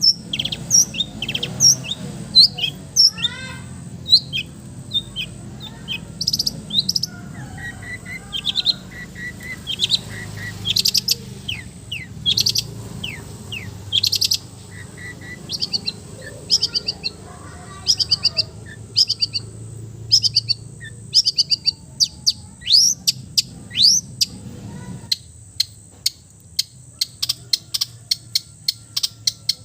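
Long-tailed shrike (cendet) singing a varied song full of mimicked calls: quick high chirps, rapid trills and short sweeping notes in fast runs. A low background hum under it stops near the end.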